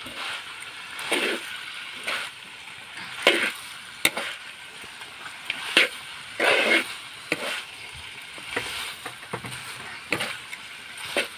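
Metal spatula scraping and tossing frying meat around a wok in irregular strokes, roughly one a second, over a steady sizzle.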